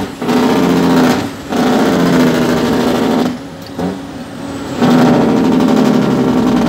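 Heavy diesel truck engine, heard from inside the cab, running steadily under load. Its note drops away three times, the last time for about a second and a half, as the driver lets off the throttle to shift gears.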